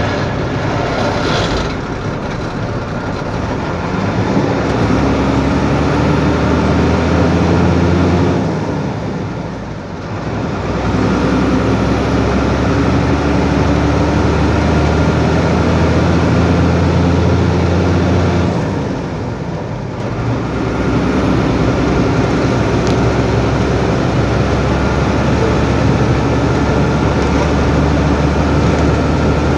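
Truck engine running on the road with steady road noise. Its note fades twice, around 9 and 19 seconds in, then returns at much the same pitch, as when the driver lets off the throttle or changes gear.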